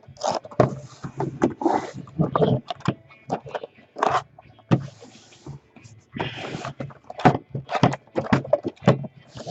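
Shrink wrap on sealed trading card boxes crinkling and tearing as it is pulled off, in quick irregular rustles and scrapes.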